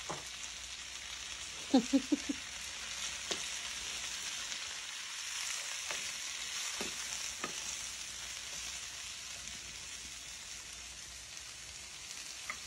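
Sliced onion, bell peppers and grated carrot sizzling in oil in a frying pan while being stirred with a wooden spatula. A quick run of loud knocks comes about two seconds in, with a few single taps later.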